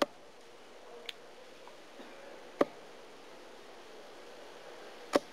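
Darts striking a dartboard during a three-dart throw: three sharp clicks about two and a half seconds apart, with a fainter click between the first two, over a faint steady hiss.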